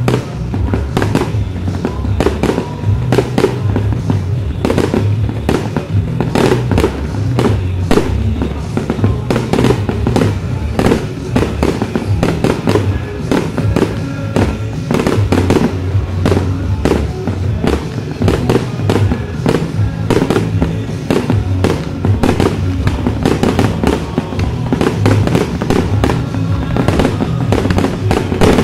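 Fireworks display going off: a dense, unbroken run of bangs and pops, with music playing underneath.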